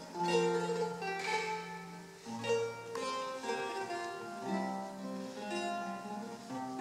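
Eight-course Renaissance lute played solo: plucked chords and melody lines over bass notes, each note ringing and fading, with fresh chords struck about two and four and a half seconds in.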